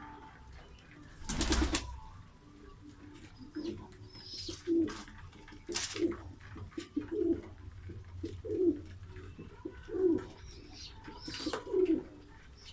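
Pigeons cooing: a run of low, repeated coos about once a second. Three short, loud noisy bursts break in, one near the start, one midway and one near the end.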